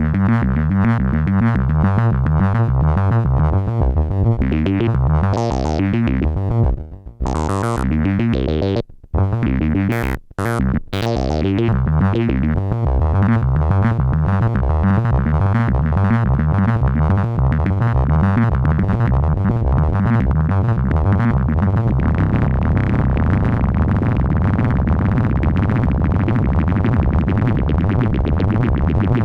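Behringer MS-1 analog monophonic synthesizer playing a fast repeating sequence of bass notes, recorded dry. Its sound is cut off a few times between about 7 and 11 seconds in, with bright rising sweeps around those breaks, and it turns denser and brighter from about 22 seconds in.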